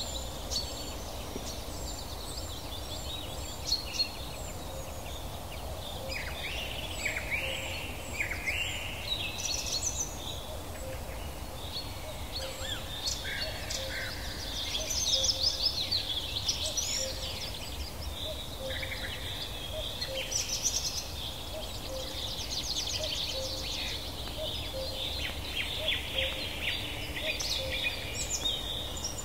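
Forest ambience of many birds chirping and trilling together in a dense, overlapping chorus, over a steady low rumble.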